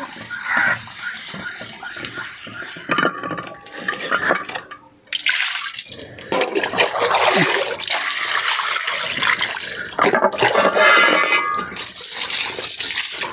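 Water splashing as a rusty iron tawa is washed by hand with detergent: wet scrubbing first, then water scooped from a bucket with a mug and poured over the tawa to rinse it, the splashing louder from about five seconds in.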